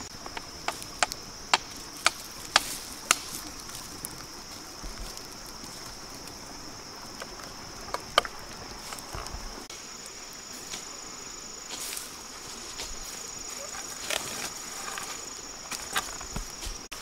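Wood cooking fire crackling and popping under a fish grilling in a bamboo rack. Sharp irregular pops come thickest in the first three seconds, with a loud single pop about eight seconds in and a few more near the end. A steady high drone of insects runs behind.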